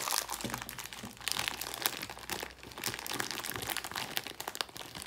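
Clear plastic snack wrapper crinkling as it is handled and pulled open around a packaged donut: a dense run of irregular crackles.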